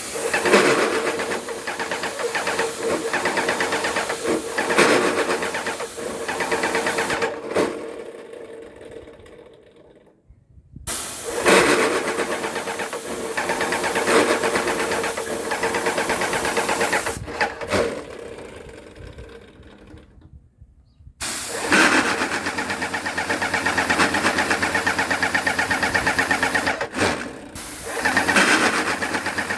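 Graco GX-21 airless paint sprayer's motor and pump starting up with a strange, rapid rhythmic chatter. It starts abruptly, runs for several seconds and winds down, and this happens three times. The owner finds this start-up sound abnormal.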